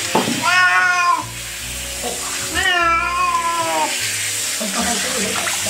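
Grey-and-white domestic cat meowing twice, the second meow longer, in protest as it is held for a shower it dislikes.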